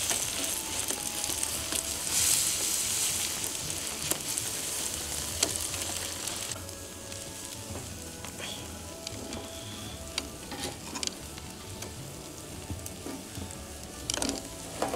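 Scallops sizzling in their shells on a wire grill over charcoal, a steady frying hiss with occasional sharp pops. The sizzle is louder for the first six seconds or so, then settles quieter.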